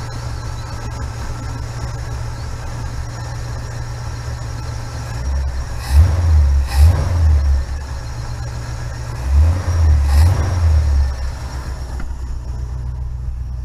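1969 Pontiac Firebird V8 idling on a newly fitted Pertronix electronic ignition, revved up twice by hand at the carburetor, about halfway through and again a few seconds later, each rev lasting a second or two before dropping back to idle.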